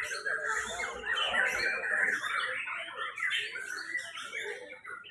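Many caged white-rumped shamas (murai batu) singing at once: a dense, continuous chorus of quick, varied whistled phrases and chatter overlapping one another.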